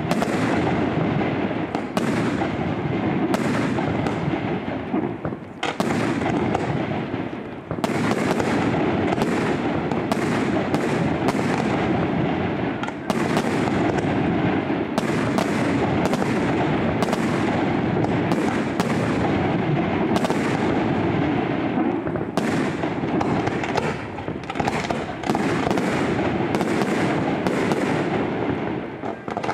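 Fireworks display: aerial shells bursting one after another in quick succession, sharp bangs over a continuous crackle, with a few brief lulls.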